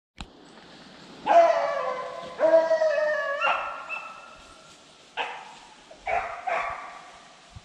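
Beagle hounds baying: three long, drawn-out howls one after another, then three shorter yelps, the cry hounds give when they are trailing a rabbit.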